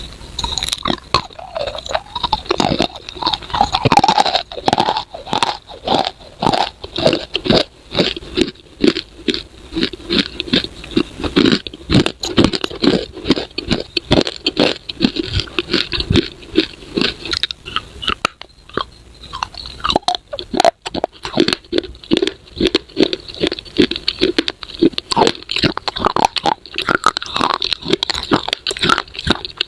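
Close-miked crunching and chewing of hard, brittle baked clay pieces, with irregular crackles and bites.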